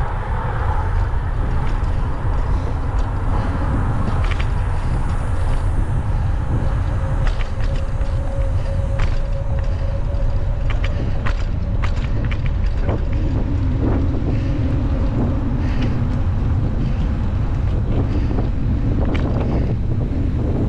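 Wind buffeting the microphone while cycling: a steady low rumble, with a few scattered clicks.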